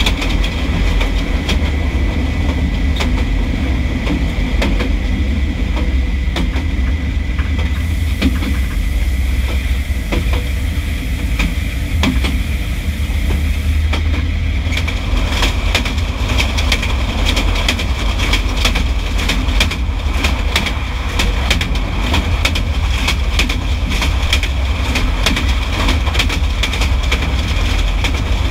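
Train wheels running on the rail at speed, heard close beside a railway car's bogie: a loud, steady, deep rumble with frequent sharp, irregular clicks and knocks from the running gear and track.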